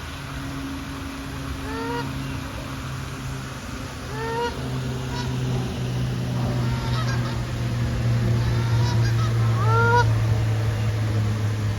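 Canada geese honking, single calls every couple of seconds, each one rising and then dropping. Under them a low steady hum grows louder toward the end.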